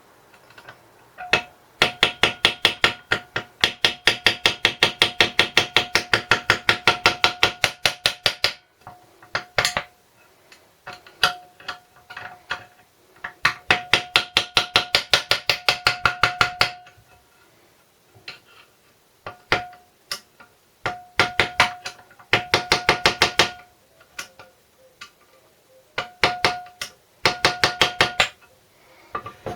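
Rapid light hammer taps on metal, about six a second, each with a short ringing note. They come in several runs with short pauses between them. The hammer is driving a tool against the lock tabs on the connecting-rod nuts of a 1964 Briggs & Stratton engine to bend them back, and the tabs are stiff and hard to shift.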